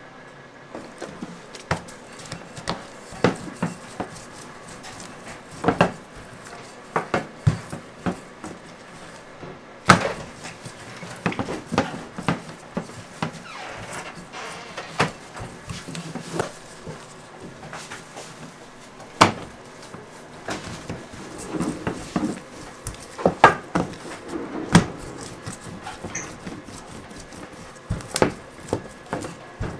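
Wooden rolling pin rolling out dough on a stainless steel counter, with irregular knocks and clacks of the pin and hands against the metal.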